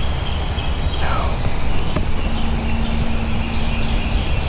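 Small birds chirping in short repeated notes over a steady low outdoor rumble, with a faint low hum holding for about two seconds in the second half.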